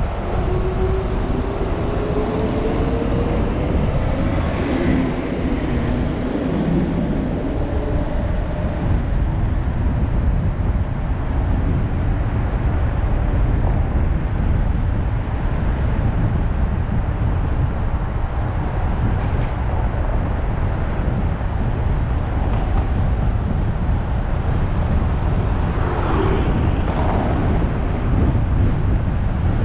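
A car driving on town streets: steady road and engine noise, with an engine note rising in pitch over the first few seconds as it speeds up.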